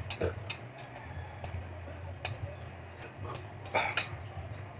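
A fork clicking and scraping against a bowl as noodles are eaten, a handful of short clicks spread through, the loudest just before 4 seconds in. A low steady hum runs underneath.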